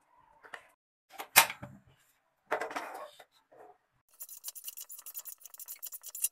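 A sharp knock about a second in, then from about four seconds a quick run of scraping clicks: a metal spatula stirring raw sponge gourd pieces and spices in a steel wok.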